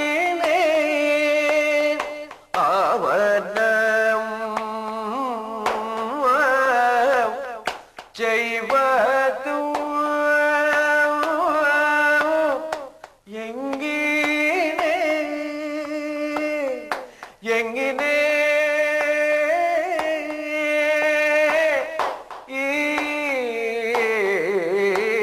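A male Kathakali singer sings a padam unaccompanied by any clear instrument. He holds long notes and moves between them in slow melodic glides, in phrases broken by short pauses.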